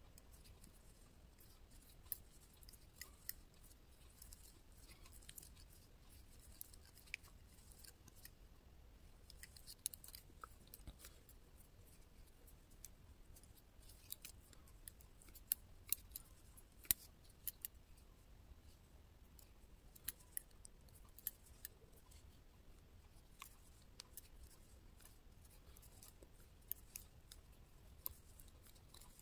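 Metal double-pointed knitting needles clicking against each other as stitches are worked: faint, irregular light clicks, a few sharper than the rest.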